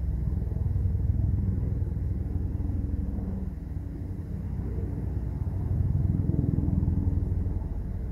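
A low rumble that swells about a second in and again near the end.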